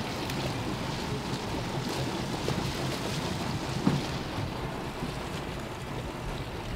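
Steady water and wind noise on a slow-trolling boat, with a hooked jack crevalle splashing at the surface beside the hull as it is landed. A short sharp knock comes about four seconds in.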